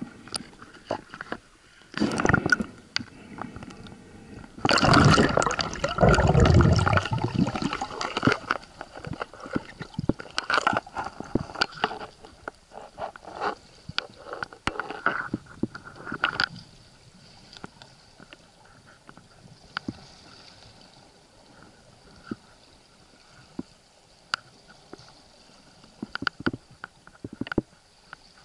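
Water gurgling and rushing against an underwater camera, loudest for about three seconds some five seconds in, then quieter, with scattered sharp clicks and knocks throughout.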